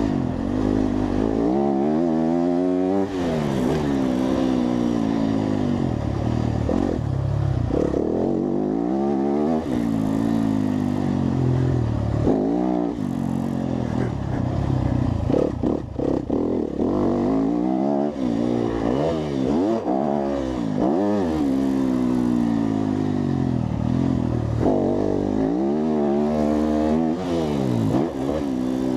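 Four-stroke motorcycle engine revved up and down over and over through its exhaust, the pitch climbing and falling every couple of seconds, with a few quick short blips near the middle.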